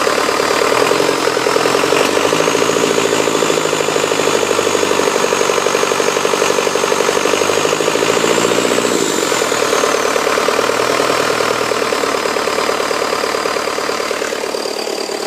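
Freshly rebuilt 2006 Cummins 4.5 diesel engine idling steadily with an even pulse, a faint high whine riding above it.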